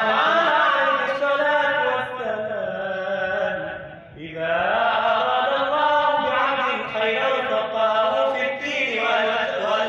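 A man chanting Arabic verses solo into a handheld microphone, in long drawn-out melodic phrases, with a brief pause for breath about four seconds in.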